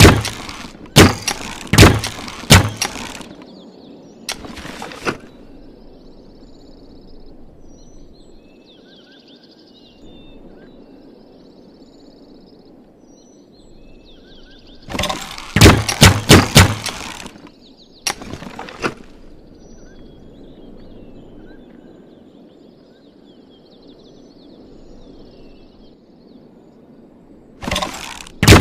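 Bamboo repeating crossbow being worked: three bursts of several sharp wooden clacks and snaps each, spaced roughly twelve seconds apart. Between the bursts there is a low steady background with faint high chirps.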